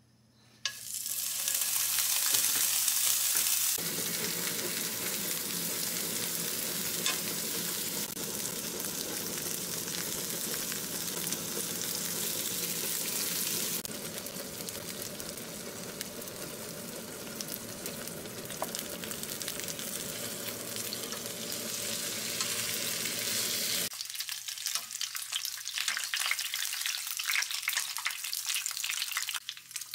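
Daechang (beef large intestine) sizzling as it fries in hot oil in a nonstick frying pan. The sizzle starts abruptly about half a second in as the intestine goes into the hot pan, then runs steadily, with sharper spattering crackles near the end as the pieces brown.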